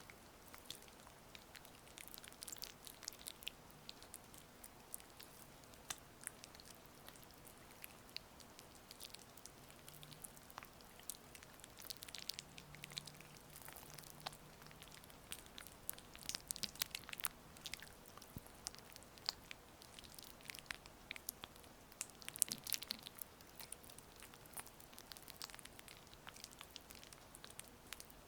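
Close-up oily hand-massage sounds: irregular soft, wet, sticky clicks and squishes of oiled hands rubbing, over a faint steady rain-sound hiss.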